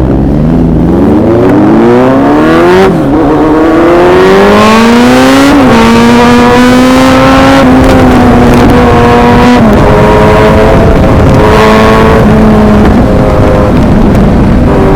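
Superbike engine accelerating hard, its note rising and dropping back sharply at two gear changes in the first six seconds, then running at a steadier pitch with brief dips.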